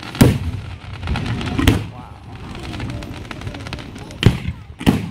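Aerial fireworks shells bursting overhead: four sharp booms, one just after the start, one near two seconds in and two close together near the end, with crackling between them.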